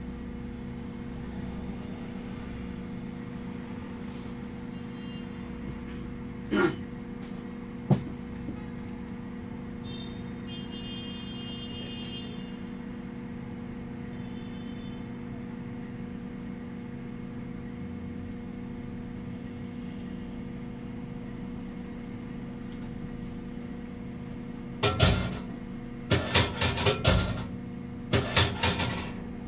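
Cabin sound of a Golden Dragon Astar electric city bus under way: a steady hum from the electric drive and the road. Two sharp knocks come about seven and eight seconds in, and several loud bursts of noise near the end.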